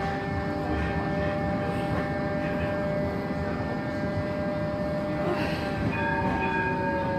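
Bombardier Flexity 2 tram heard from inside the passenger saloon while running: a steady rumble of wheels and running gear with the whine of the electric traction drive held on several steady tones. About six seconds in, a higher set of whine tones joins and one tone begins to fall.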